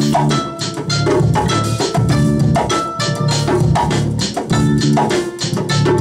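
Live hand-drum percussion on djembe and conga drums, a quick steady rhythm of struck strokes, with sustained pitched melodic notes over it.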